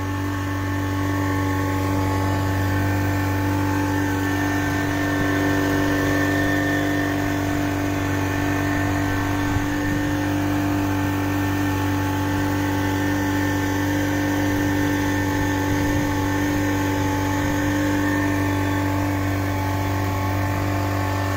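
A 40 hp outboard motor runs at a steady, constant speed, driving a speedboat along while trolling. It is a loud, even drone that neither rises nor falls.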